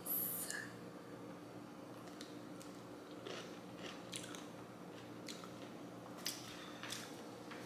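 A bite crunching into a candy-coated pickle right at the start, then faint, scattered crunches as it is chewed.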